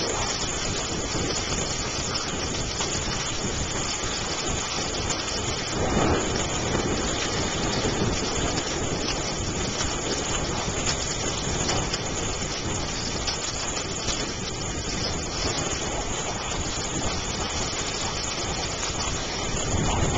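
Heavy rain pouring down steadily on the street and pavement, swelling briefly about six seconds in.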